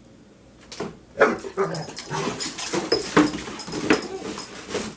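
Pet dog making short whining and growling noises in play, with scattered sharp clicks, starting about a second in.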